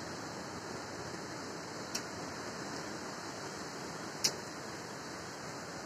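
Steady storm noise of cyclone wind and rain tossing palm and banana trees, with two sharp clicks, about two seconds in and again about four seconds in.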